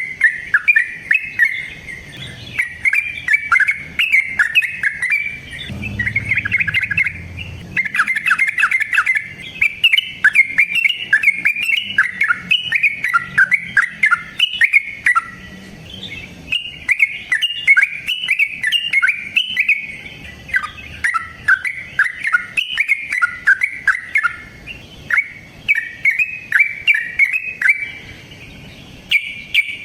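Yellow-vented bulbul (trucukan) singing a long, rapid run of chattering notes, broken only by a few brief pauses.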